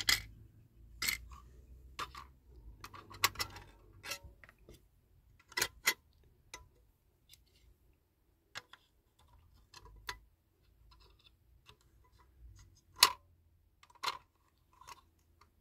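Scattered small clicks and taps of a diecast metal toy body and its plastic parts being handled and pushed together, as a part that will not seat properly is worked back into place; the sharpest click comes about 13 seconds in.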